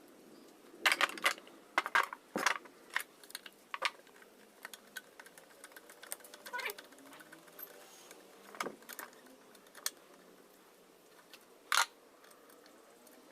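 Metal parts of a Butterfly sewing machine clicking and clinking as they are handled, with a cluster of sharp knocks about a second in and one more near the end.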